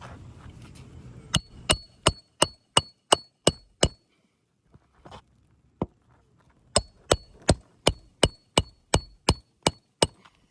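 Roofing hatchet hammering roofing nails into new three-tab asphalt shingles: two quick runs of hammer blows, about three a second, each blow with a short metallic ring, a few single taps between them.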